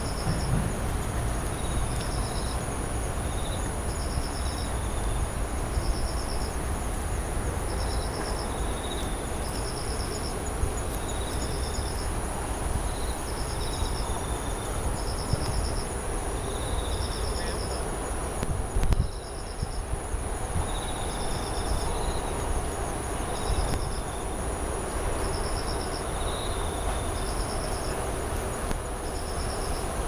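Crickets and other night insects chirping. One repeats a short trill about once a second, and another gives less regular chirps a little lower in pitch, over a steady high thin tone and a low background rumble.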